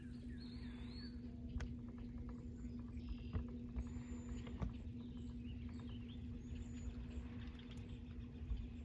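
Small birds chirping and calling on and off over a steady low hum and rumble.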